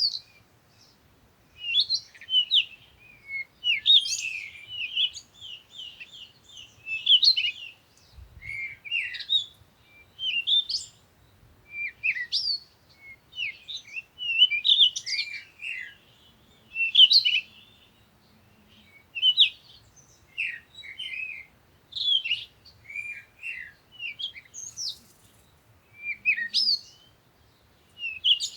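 Songbirds chirping and singing in a morning chorus: short high chirps and quick trilled phrases in bursts every second or two, with brief gaps between.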